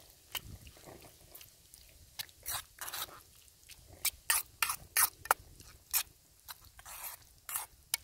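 A metal spoon stirring a thick vegetable stew in a stainless steel camping pot: irregular clicks and scrapes of the spoon against the pot as the vegetables are turned over, several a second.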